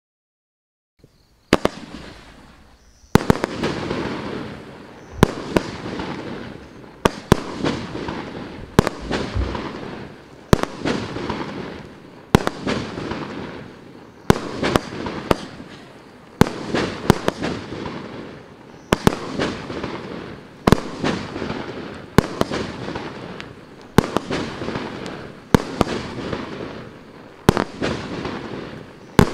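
Maxsem SB-19-02 'Love of Blue' firework cake, 30 mm calibre with 19 shots, firing its shots one after another. The first goes off about a second and a half in, and the rest follow about every two seconds. Each is a sharp bang with a fading rush of noise after it.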